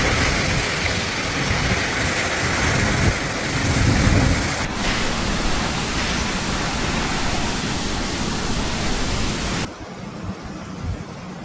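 Heavy typhoon rain and wind making a loud, even rushing hiss. It breaks off sharply about five seconds in and comes back, then drops to a quieter rush near the end.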